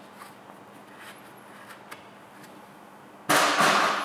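Faint rubbing and a few light clicks of a cloth wiping a brake caliper. About three seconds in, a sudden loud rush of noise starts and fades within a second.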